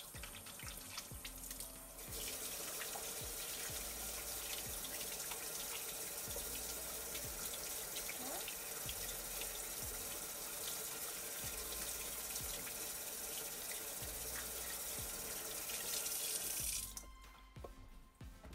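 Kitchen faucet running into the sink while hands are rubbed and rinsed under the stream, the water growing louder about two seconds in. The water shuts off about a second and a half before the end.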